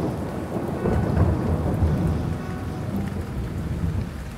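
Steady rain falling, with a low rolling rumble of thunder that swells about a second in.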